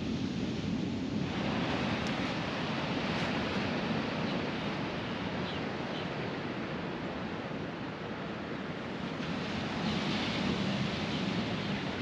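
Atlantic surf breaking and washing up the beach: a steady rush of waves that swells about a second in and again near the end.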